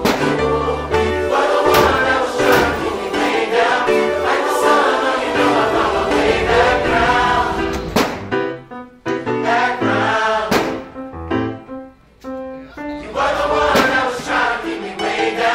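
Background music: a choir singing.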